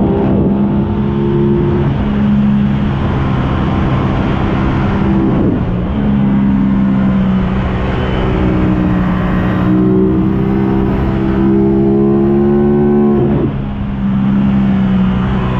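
Aprilia RS660's 659 cc parallel-twin engine pulling hard under steady throttle on the move. Its note briefly drops and picks back up about five seconds in and again near the end.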